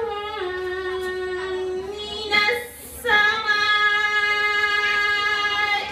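A girl reciting the Quran in a melodic tajweed chant, holding two long, steady notes with a short break between them about two and a half seconds in.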